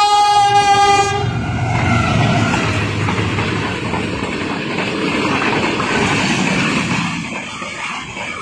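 A passenger train passing at speed. The locomotive's horn sounds and stops about a second in, then the coaches rush by with a steady rumble and wheel clatter that eases slightly near the end.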